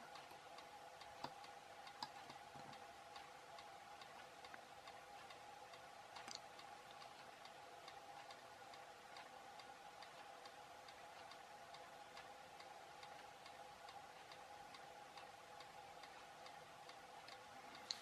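Near silence with faint, regular ticking, roughly one and a half ticks a second, over a faint steady hum. A few slightly louder soft clicks come in the first seven seconds.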